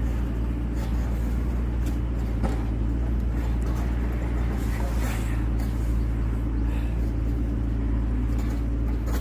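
A steady low engine or motor hum holding one even pitch, with a few faint knocks over it and a sharp crack right at the end.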